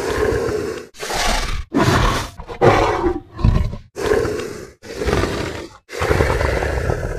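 Recorded dinosaur roars from an animatronic dinosaur exhibit: a rapid run of about eight short, rough roars, each under a second, one after another.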